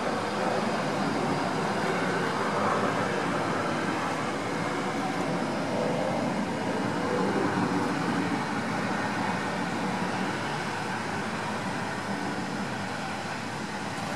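Steady background noise of town traffic, an even rush with a slight swell in the middle.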